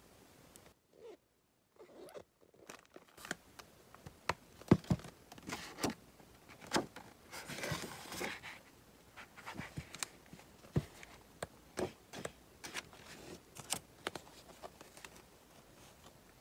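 Sheets of thick Prima Marketing scrapbook paper being turned and handled. After a short near-silent moment, the paper gives a run of crisp crackles and taps, with a longer sliding rustle about halfway through.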